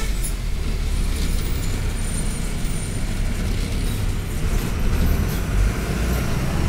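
Bus engine and road noise heard from inside the moving bus cabin: a steady low rumble.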